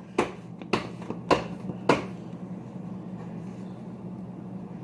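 Four short, sharp taps or knocks about half a second apart in the first two seconds, over a steady low hum.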